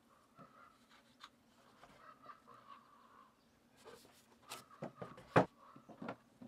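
PVC pipe with freshly glued elbow fittings being handled and laid down on a wooden work table, giving a few soft knocks and clatters, mostly in the second half.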